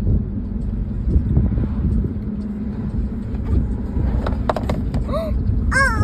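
Steady low road rumble inside a moving car's cabin, with a few light knocks about four and a half seconds in. Near the end comes a young child's short high-pitched voice, two brief rising-and-falling sounds.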